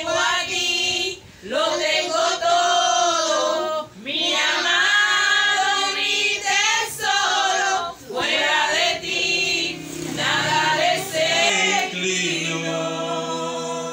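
A young girl singing into a handheld microphone, amplified, with several other voices singing along in phrases broken by short breaths. Near the end a lower man's voice takes over.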